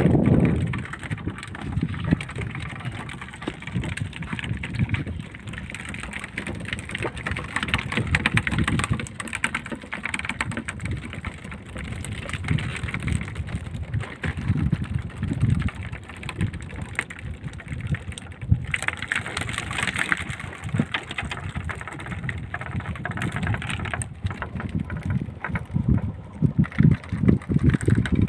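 Small fishing boat under way while trolling: its engine running, with wind on the microphone and water splashing along the hull.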